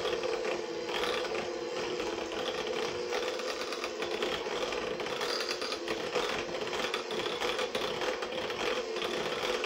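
KitchenAid electric hand mixer running steadily, its beaters churning cream cheese frosting in a glass bowl.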